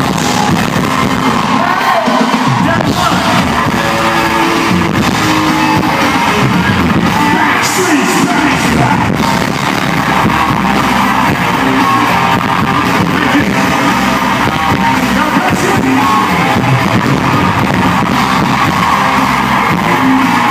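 Live pop concert heard from the crowd in an arena: amplified band and singing with crowd shouting, loud and distorted, with heavy hall echo.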